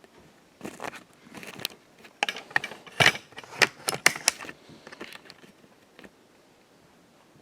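A quick, irregular run of sharp clicks and rattles, like small hard parts being handled, bunched most densely between about two and four and a half seconds in.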